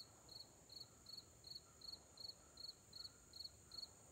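Faint insect chorus in woodland: one insect chirping in an even rhythm, about three chirps a second, over a steady high-pitched drone of many others.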